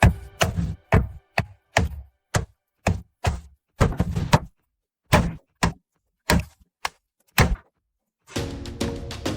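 A run of sharp knocks, irregular at roughly two or three a second with dead silence between them, which stops a little over three-quarters of the way through; music comes in near the end.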